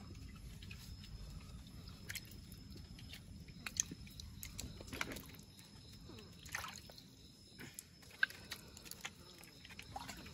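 Shallow river water sloshing, with scattered small splashes and knocks among the rocks.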